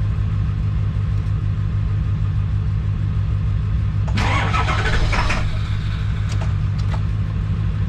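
7.3 L diesel engine cranking steadily on its starter, helped by a jump pack, without catching, which the owner puts down to bad glow plugs and probably injectors. A brief hissing burst comes about four seconds in.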